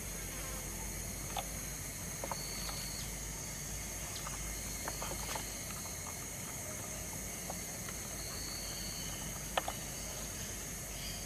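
Rural outdoor ambience: a steady high insect drone under a soft hiss, with short high buzzing notes every few seconds and a few faint clicks.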